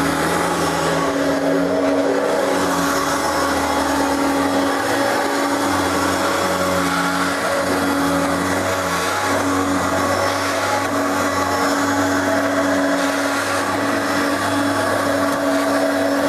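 Hoover Turbopower vacuum cleaner running steadily at full power: a loud motor hum with a steady tone and a lower tone that wavers up and down.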